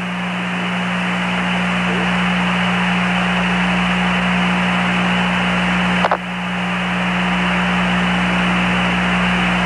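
Open air-to-ground radio channel between transmissions: a steady hiss of static with a low, steady hum. A brief click breaks it about six seconds in.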